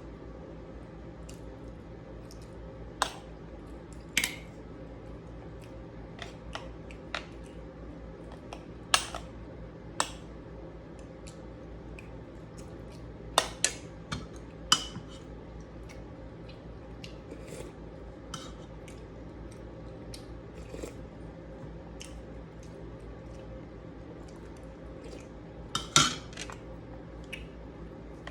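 Eating utensils clinking and scraping against a plate and bowl: scattered sharp clicks at irregular intervals, with a louder clatter near the end, over a steady low hum.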